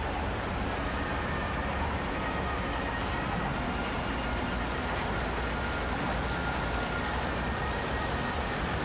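Steady rushing of a shallow stream running over rocks and small rapids, with a low rumble of city traffic underneath.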